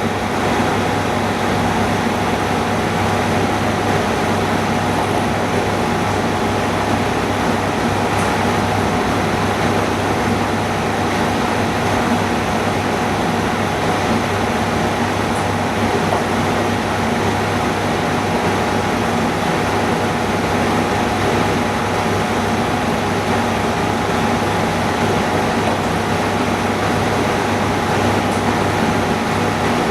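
Steady machine drone with rushing air, a constant low hum and a faint steady whine, unchanging throughout, from equipment running in the workroom.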